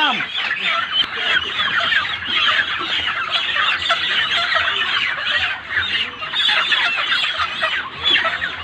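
A flock of white broiler chickens calling all at once, a dense, continuous din of many short overlapping clucks and squawks, from birds being caught and carried upside down by the legs for weighing at harvest.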